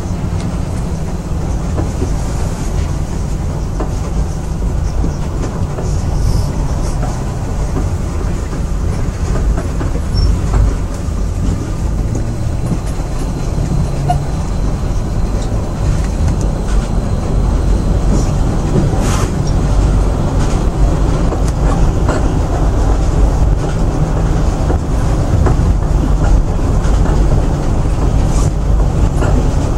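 Moscow monorail train running along its elevated track, heard inside the car: a steady low rumble that grows a little louder in the second half, with a few faint clicks.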